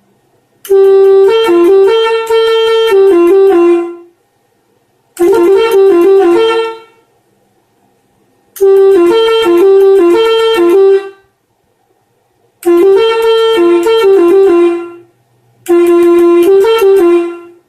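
Telolet air horns playing five short tunes one after another, each lasting one and a half to three seconds, with silent pauses between them. Within each tune the pitch steps back and forth between a few notes, giving the typical "telolet" jingle of an electronic horn module that switches the air horns in sequence.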